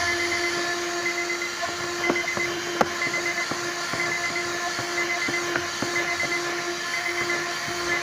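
Handheld 12-volt car vacuum cleaner running with a steady whine and airy hiss while its brush attachment scrubs sand from the car interior, with scattered small ticks of grit being sucked up.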